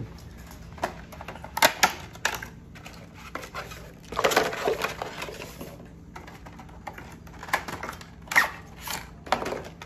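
Phone-case packaging of plastic and cardboard being handled and opened: scattered clicks and taps, with a longer rustle about four seconds in.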